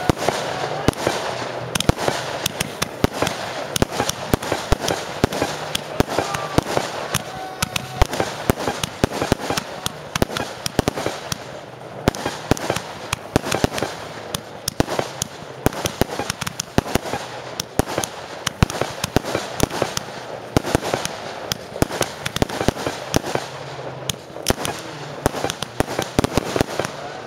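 Professional fireworks display, with rising comets and shells fired and bursting in quick succession: a dense, unbroken string of bangs.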